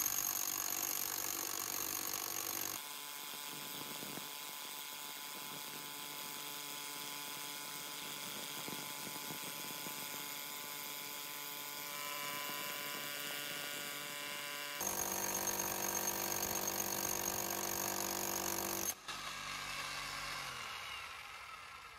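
Würth BMH 40-BL brushless SDS-max hammer drill drilling into concrete with a 30 mm bit, heard as a steady electric buzz. Its pitch pattern changes abruptly about 3, 12, 15 and 19 seconds in, and it fades out at the end.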